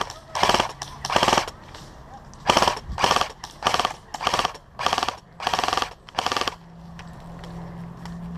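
Airsoft rifle firing about ten short rapid-fire bursts in quick succession, each a fast rattle of shots; after the last burst a steady low hum remains.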